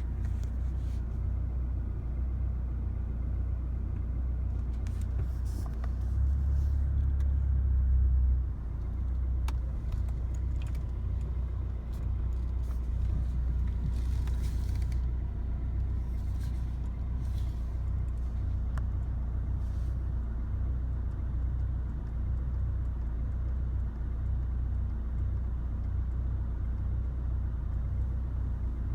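2016 Chevrolet Colorado's 2.8L four-cylinder Duramax turbodiesel idling roughly: a steady low rumble that swells louder for about two seconds around six seconds in, then drops back. The rough idle set in after a highway drive.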